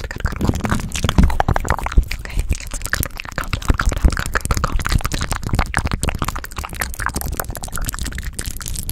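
Fast ASMR mouth sounds right on the microphone, with hands cupped around it: a dense, irregular run of wet clicks and pops, several a second, mixed with the rustle of hands moving close to the mic.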